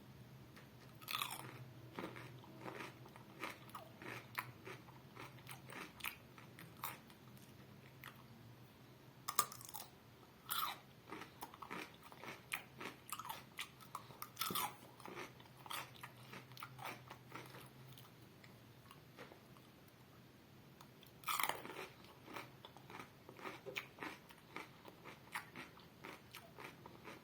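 Someone biting into and chewing a raw cucumber close to the microphone: crisp, wet crunches throughout. The louder bites fall about a second in, around nine to eleven seconds, near fifteen seconds and about twenty-one seconds in.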